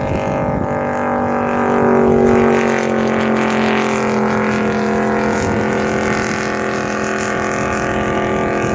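Speedboat engine running flat out at full speed: a loud, steady drone whose pitch drops a little as the boat goes by, loudest about two seconds in.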